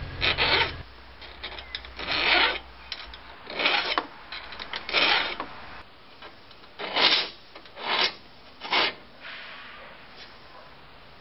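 A saw file rasping across the teeth of a vintage Japanese kataba crosscut log saw clamped in a saw vise, in about seven separate strokes roughly a second apart. The file is suspected of being blunt.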